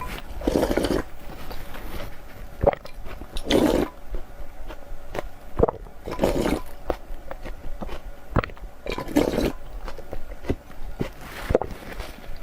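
Close-miked eating: wet chewing with sharp mouth clicks and smacks, and four louder, longer wet sounds about every three seconds.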